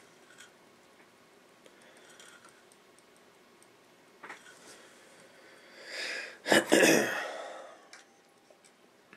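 A person lets out one loud, breathy burst of breath about two-thirds of the way through, among faint clicks and taps of small hand work.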